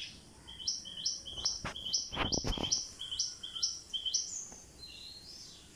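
A small bird calling outdoors, repeating a short, high, rising chirp about twice a second, with a few dull thumps near the middle.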